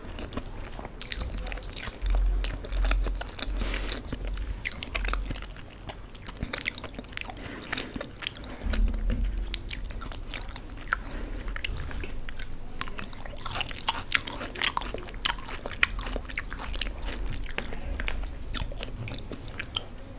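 Close-miked chewing of a mouthful of Maggi instant noodles and macaroni: many small wet clicks and smacks of the mouth, with a few heavier low thumps about two and nine seconds in.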